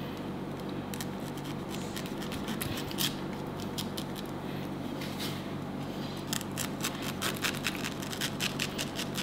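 Kitchen knife cutting the flesh out of a halved pineapple: a series of short cutting strokes and scrapes, coming quicker in the second half, over a low steady hum.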